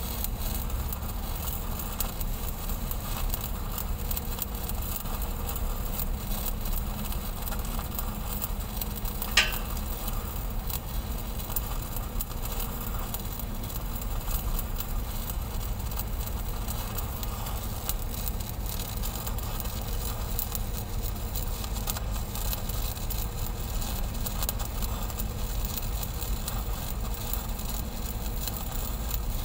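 Stick-welding arc running steadily on a large steel pipe joint, a continuous crackling hiss. About nine seconds in there is one short, sharp high ping that drops in pitch.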